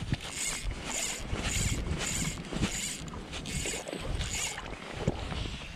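Fishing reel being cranked to retrieve the line, a raspy whirring that comes in short bursts about twice a second and stops near the end. Wind buffets the microphone underneath.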